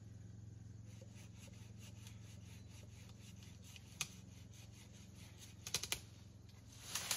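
Faint clicks and snaps of branches being cut and broken in shrubbery while bush is cleared by hand: a single sharp snap about four seconds in, a quick run of clicks near six seconds, and a louder rustling crack near the end.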